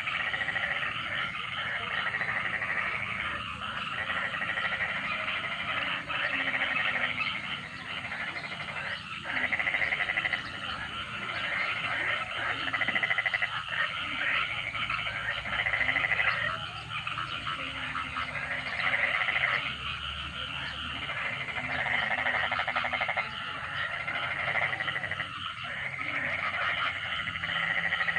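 A chorus of many frogs calling together, a dense pulsing croak that swells in repeated waves every second or two.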